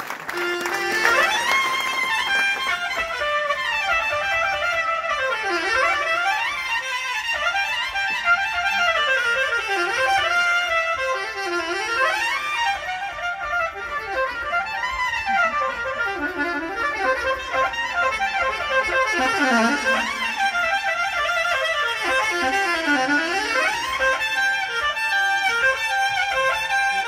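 Soprano saxophone played live, a single melodic line of fast runs sweeping up and down, falling back to low notes every few seconds.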